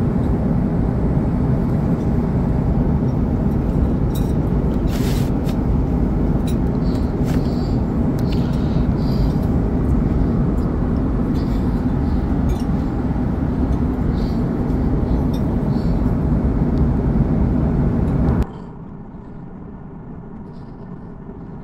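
Steady low roar of an Airbus A340-600 cabin in cruise, engine and airflow noise, with a few light clicks. Near the end it drops suddenly to a much quieter steady hiss.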